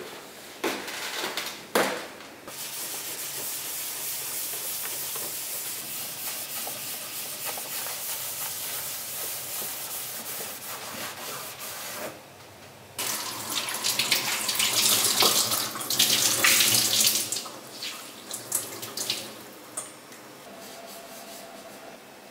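A tap running in a steady stream for about ten seconds. After a short break comes louder, irregular splashing as something is rinsed under the water. There are a few knocks at the start and scattered clicks near the end.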